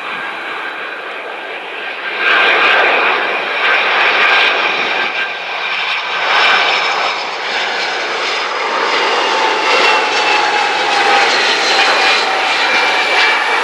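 Jet engines of an Airbus wide-body freighter on final approach, a loud rush of engine noise with whining tones that slowly fall in pitch as it passes. The noise swells sharply about two seconds in.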